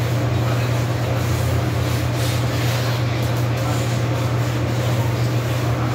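Hand scrubbing of a tiled kitchen floor, an uneven rubbing that is busiest about two seconds in, over a steady low hum.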